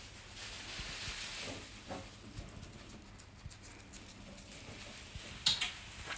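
Faint rustling and scattered small ticks of wood-shaving and straw bedding as an otter scurries over it, with a brief, sharper sound about five and a half seconds in.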